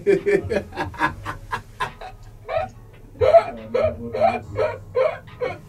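A man laughing: a quick run of short breathy bursts, then a few longer voiced laughs about three seconds in.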